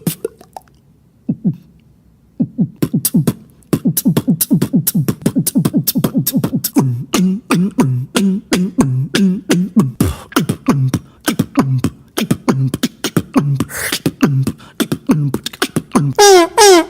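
Human beatboxing: after a couple of quiet seconds, a fast run of sharp mouth clicks and percussive hits over a low, pitched vocal bass that bends up and down. Near the end a loud, held pitched vocal tone begins.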